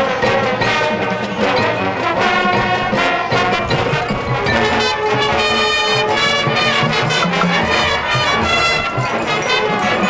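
Marching band playing, the brass section holding sustained chords.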